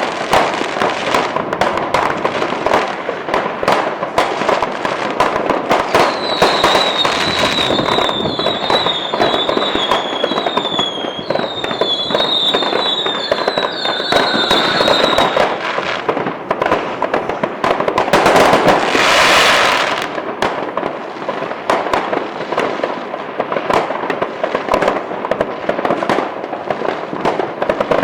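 Fireworks going off many at once: continuous crackling and popping with frequent bangs. From about six seconds in to about fifteen seconds, a run of short, high, falling whistles repeats, and near the two-thirds mark a loud hissing rush lasts a second or two.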